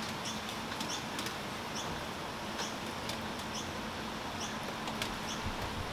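Steady hiss of heavy rain with a small bird giving short, high, upward chirps again and again, plus a few faint ticks.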